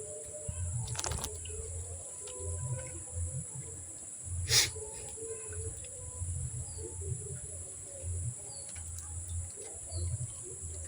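Outdoor swamp-side ambience: birds calling, with a few short high chirps late on, over a steady high-pitched drone and a low rumble that comes and goes. A single sharp click about four and a half seconds in stands out as the loudest sound.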